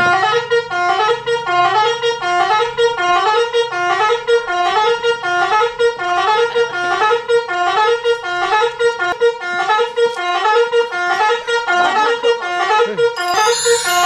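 Basuri telolet horn playing a song: a quick tune of honking horn notes, the same short phrase repeating over and over, which breaks off near the end.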